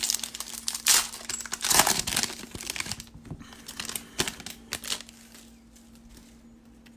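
Foil wrapper of a 2019 Certified football card pack being torn open and crinkled by hand: loud crackling and ripping for about five seconds, fading near the end as the cards are laid down.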